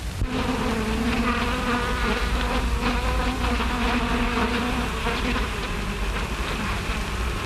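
Buzzing of a bee, most likely a film sound effect: a steady, even-pitched drone lasting about five seconds, fading out toward the end.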